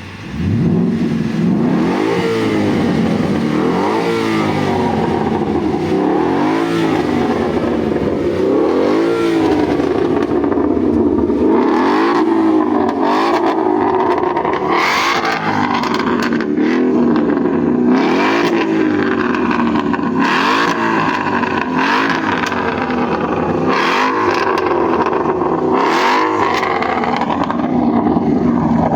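Bajaj Pulsar N160 motorcycle's single-cylinder engine revved over and over, its pitch climbing and falling back about every two seconds, with short sharp cracks between some of the revs in the second half.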